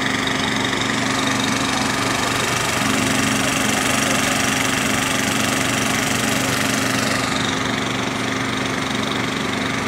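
An engine idling steadily, a low hum with a constant tone. A hiss above it fades about three quarters of the way through.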